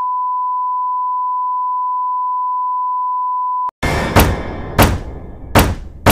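A steady, pure electronic beep tone held for nearly four seconds, cutting off abruptly. It is followed by an intro of music or sound effects opening with four heavy hits, each a bit under a second apart.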